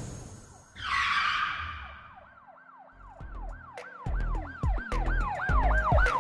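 Intro sound design: a whooshing swell about a second in fades away. Then comes a yelping siren sound, its pitch sweeping up and down about three times a second, with heavy bass hits coming in under it and building as the intro music starts.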